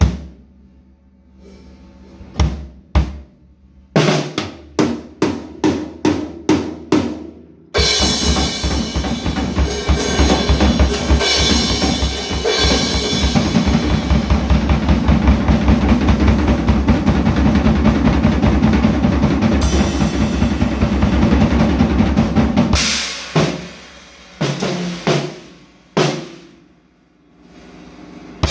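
Acoustic drum kit with cymbals played solo: a handful of separate strokes at first, then about fifteen seconds of fast, dense drumming with cymbals washing over it, ending in a few scattered hits.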